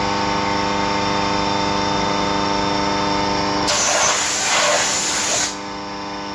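CNC machining centre milling an aluminium plate, a steady whine from the spindle and cutter. Nearly four seconds in, a loud hiss starts abruptly and lasts about two seconds before cutting off suddenly.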